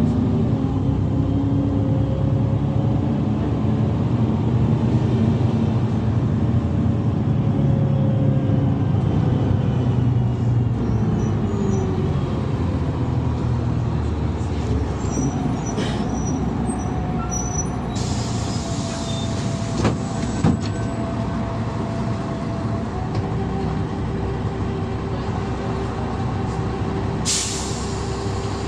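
GolAZ-5225 city bus heard from inside the passenger cabin while driving: steady engine drone and road noise, its pitch sliding as the bus changes speed. There are a few clicks and rattles near the middle, and short hisses of air about two-thirds through and near the end.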